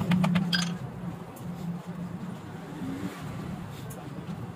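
Cobbler's hammer tapping quickly on the leather upper of a chappal laid on a stone block, a short run of light taps that stops within the first second. A steady low hum runs underneath.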